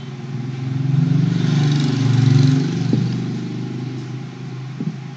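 A motor vehicle's engine droning past, swelling to a peak about two seconds in and then fading. Two short clicks come near three and five seconds in.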